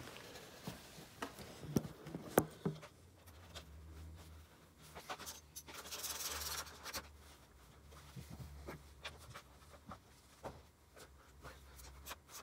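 Hand tools working on the motorcycle's front fork as the pinch bolts are tightened: a string of irregular sharp metal clicks and taps, with a brief rubbing hiss about six seconds in. A low steady hum runs underneath from about three seconds in.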